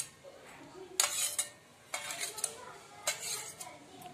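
A metal spoon scraping and tapping against a steel bowl to knock out chopped tomato, coriander and green chilli. Three sharp clinks about a second apart.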